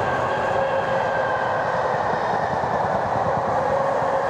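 Locomotive-hauled test train, top-and-tailed by Class 73 locomotives, running on the track: a loud, steady rail rumble with a steady tone running through it.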